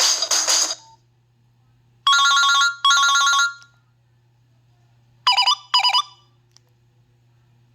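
Ringtones played through a Nokia 5610 mobile phone's loudspeaker. A busy musical tone cuts off within the first second. About two seconds in comes a ring of two short bursts, and about five seconds in two quick chirping blips half a second apart.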